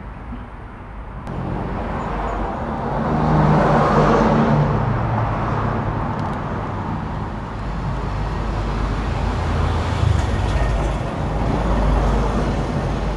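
Road traffic: a passing motor vehicle's engine that grows loudest about four seconds in, with a second swell near the end.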